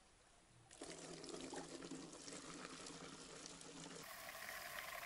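Gasoline pouring from a car's fuel tank through a hose into a plastic bottle, starting about a second in and running steadily.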